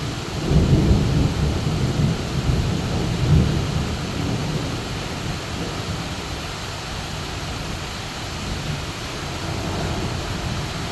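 Heavy rain pouring steadily, with a low rumble of thunder. The thunder starts about half a second in, is loudest over the first few seconds, dies away, then swells again near the end.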